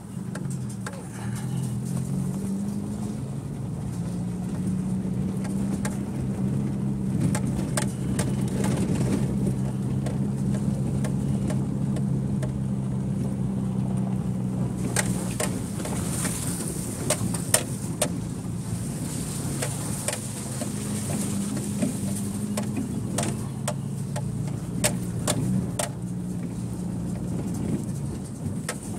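1999 Subaru Outback's flat-four engine running at a steady low pitch as the car rolls along a rough dirt road, heard from inside the car. Scattered knocks and rattles come from the car going over bumps.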